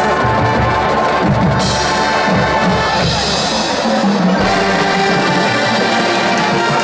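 Marching band playing a funk arrangement, brass over drums, with a cymbal-bright passage in the middle.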